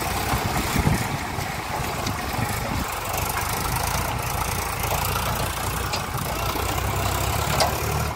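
Diesel farm tractor engine running steadily as it pulls a trailer through deep mud.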